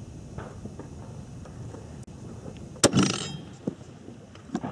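A single rifle shot about three seconds in from a Swiss K-31 firing GP11 7.5×55 mm military ammunition: a sharp crack with an echo trailing off over about half a second, followed by a few faint clicks.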